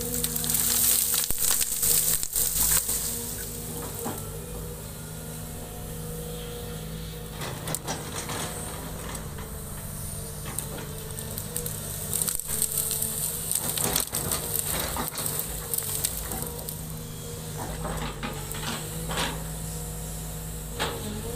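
Sumitomo SH210 excavator's diesel engine running steadily while its bucket pushes and crushes heaps of cut branches and brush, which crack and snap in bursts. The crackling is busiest in the first few seconds and again near the end.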